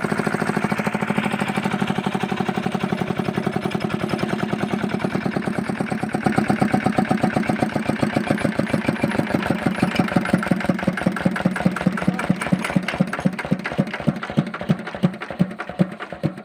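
Fitter single-cylinder diesel engine running after air has been bled from its fuel pump, each firing stroke heard as a distinct beat. Through the second half the beats come further and further apart as the engine slows down.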